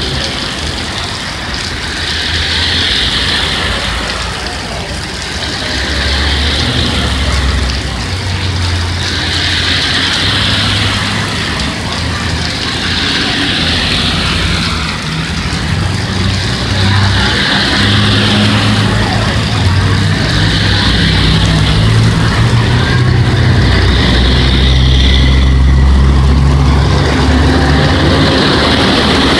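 A slow line of vehicles passing one after another on a rain-wet street: engines humming low and tyres hissing on the wet road, the hiss swelling as each vehicle goes by, about every three or four seconds.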